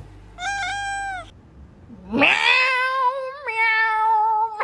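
Cat meowing: one short meow that falls away at its end, then, after a pause of under a second, a long drawn-out meow that rises at first and then holds, dipping a little in pitch about three and a half seconds in.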